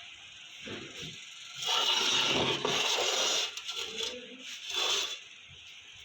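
Rough scraping, likely abrasive work on a metal part being prepared for plating: a long stretch of about two seconds, then a shorter burst near the end.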